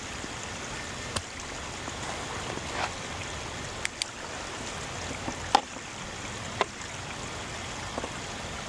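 Running stream water trickling steadily, with a handful of sharp clicks scattered through it, the loudest a little past halfway.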